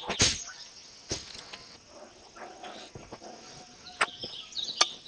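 Outdoor ambience of birds chirping over a faint steady insect trill, broken by four sharp clicks or taps, the loudest near the end.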